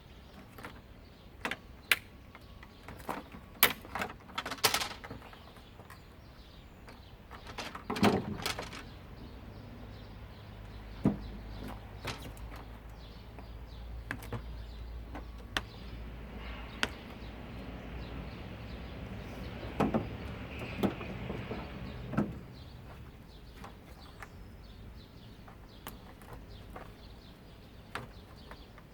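Scattered clicks, knocks and clatter of plastic and metal parts being handled and pried apart while a washing machine is dismantled for scrap, with a low rumble underneath through the middle.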